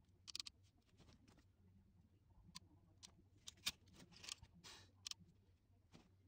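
Faint scattered clicks and short rustles of hands handling electrical wires and a small hand tool at an air conditioner's control panel, over a low steady hum.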